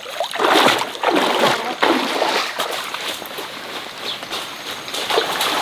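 Water splashing in a stream, loudest in the first two seconds and then settling into a steadier wash.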